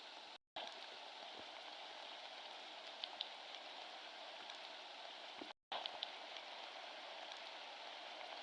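Faint steady hiss like rain falling, with a few light ticks like drops; twice it cuts out completely for a moment, about half a second in and again about five and a half seconds in.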